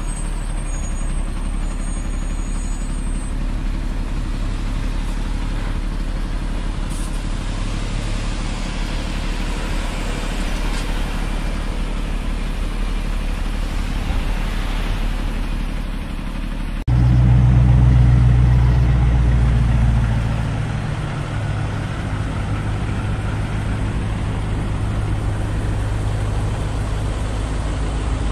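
Diesel semi-truck engines running at low speed, a steady low drone. About two-thirds of the way through it cuts abruptly to a louder, closer diesel idle of a semi-truck tractor, which settles into a steady low hum.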